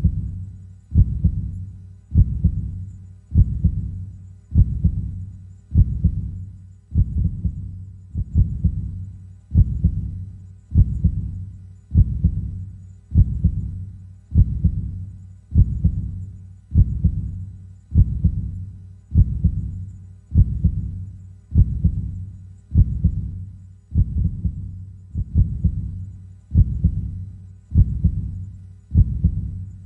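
A slow, steady heartbeat: low thuds repeating evenly at about one beat a second.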